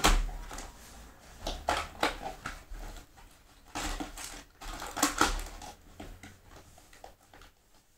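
Yu-Gi-Oh! trading-card packaging being handled and opened: irregular rustles, crinkles and light taps, in short bursts about once or twice a second.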